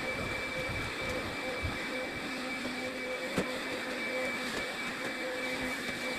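Vacuum cleaner running steadily, a constant motor whine over airflow noise, with a single sharp click about halfway through.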